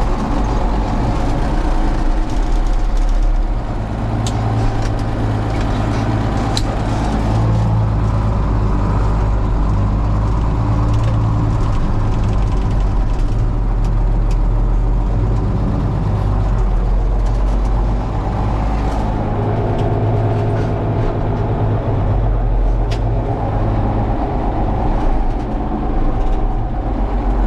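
Farm tractor engine running steadily in road gear while driving, with occasional light rattles and clicks.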